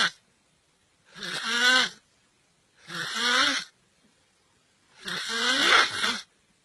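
Snoring: the end of one snore, then three more, each about a second long with a wavering pitched tone, with silent pauses between them.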